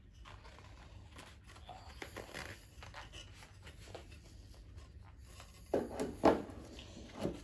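Hands handling the parts of a car heater and air-conditioning housing: faint scattered clicks and rustles, then a few sharper knocks and clicks about six seconds in and again near the end.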